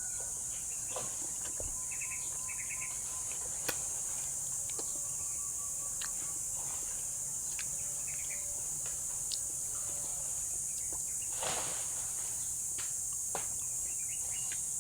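Steady high-pitched buzzing of insects such as crickets, with scattered light clicks and a few short chirps over it.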